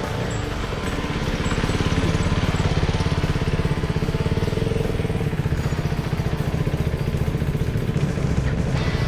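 Motorcycle engine running under way, the exhaust pulsing steadily and pulling harder about a second and a half in.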